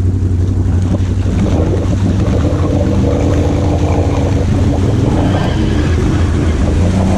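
ATV engines running, with a constant low hum throughout. From about a second and a half in, a higher engine note wavers up and down as the quad ahead works through deep muddy water.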